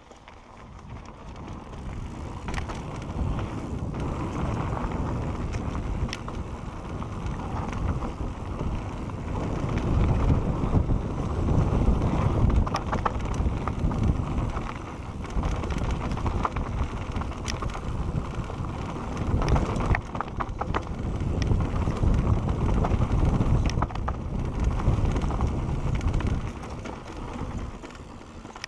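Wind rushing over the action-camera microphone and the tyres of a Santa Cruz Bronson mountain bike rolling fast over a dirt singletrack, with scattered clicks and rattles from the bike. The rush builds over the first few seconds, swells and eases twice with speed, and drops near the end.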